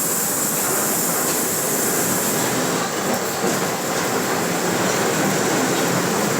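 Steady ride noise of a moving Mercedes-Benz OF 1721 BlueTec 5 bus with a Caio Apache Vip IV body, its differential growling.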